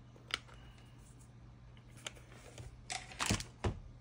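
A few sharp light clicks and taps from small things being handled on a workbench: one shortly after the start, one about two seconds in, and a louder cluster of three or four near the end, over a steady low hum.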